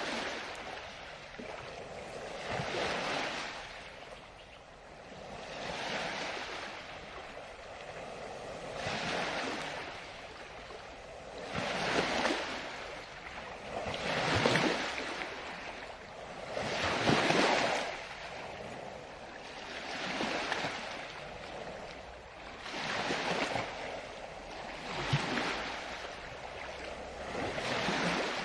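Ocean waves breaking and washing up a shore, a hissing surge about every three seconds, each swelling and fading away.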